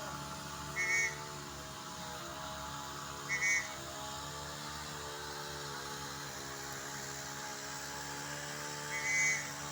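A steady motor hum with three short, high chirps: one about a second in, one at about three and a half seconds, and one near the end.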